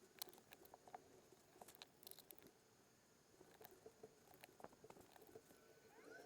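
Near silence with faint, irregular small clicks and scratches from hands reseating memory modules and the CPU on a motherboard.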